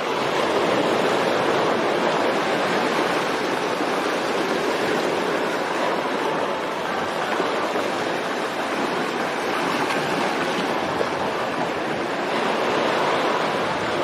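Steady rush of water, an even unbroken noise that swells slightly near the end.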